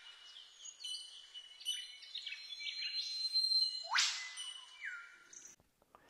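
Several Australian subtropical rainforest birds calling over one another with chirps and whistles. A loud upward-sweeping whistle comes about four seconds in, and the birdsong cuts off suddenly near the end.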